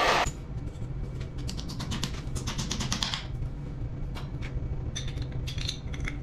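An electric drill stops right at the start, then a run of quick, light clicks and rattles, densest in the middle, over a steady low hum.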